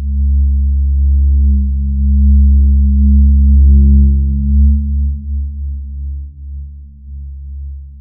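Deep, low drone of a few steady bass tones with nothing higher above them, swelling over the first four seconds and then fading and wavering.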